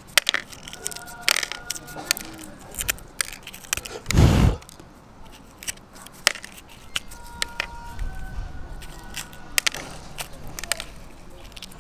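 Ostrich eggshell being picked apart by gloved fingers: scattered sharp cracks and clicks as small shell pieces snap off the broken edge, with one brief, louder handling bump about four seconds in.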